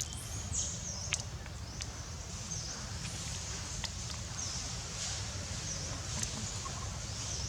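Short high-pitched animal chirps, repeating about once a second, over a steady low rumble, with a few sharp clicks.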